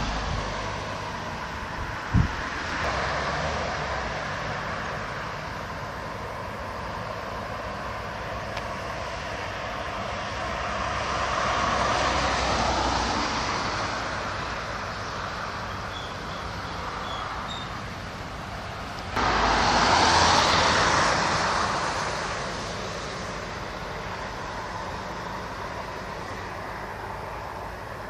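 Road traffic: a steady noise of vehicles that swells as one passes, then again more loudly from a sudden start about two-thirds of the way in before fading.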